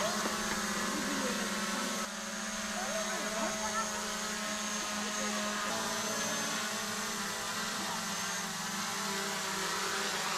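Small folding quadcopter drone's propellers buzzing steadily as it hovers low and descends, the pitch shifting about two seconds in and again near the middle.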